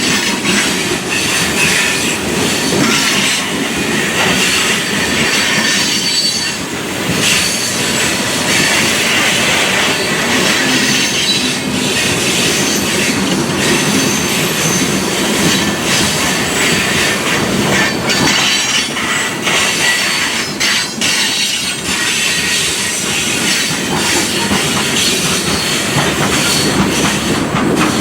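Freight train cars rolling past, steel wheels squealing against the rails over a steady, loud clatter.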